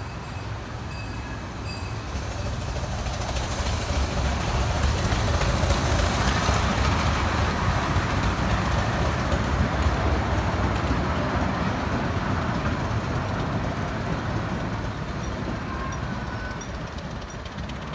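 The Little Puffer, a 1905 Cagney Brothers miniature steam train, rumbling past on its track. It grows louder over the first few seconds, peaks about five to ten seconds in, then fades as the train moves away.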